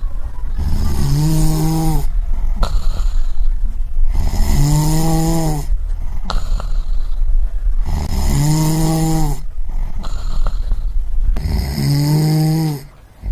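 A person snoring in a steady rhythm: four snores about three and a half seconds apart. Each snore has a buzzing, pitched drone and a breathy hiss.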